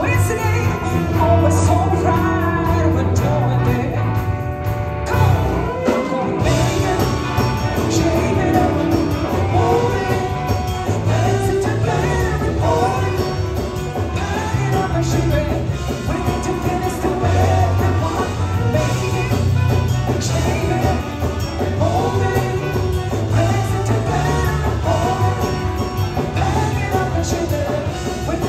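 Live rock band playing with a woman singing lead over electric guitar, saxophone and trumpet, with a steady bass line and drums.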